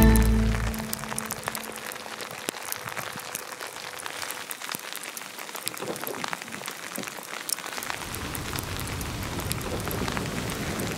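Rain pattering: a steady hiss dotted with many small drop ticks, with a deeper rumble coming in about eight seconds in.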